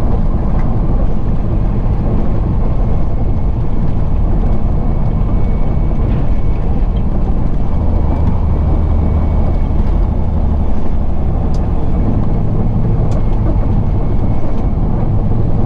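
Semi-truck's diesel engine and tyre noise droning steadily inside the cab while cruising, with a deeper hum swelling for a few seconds in the middle.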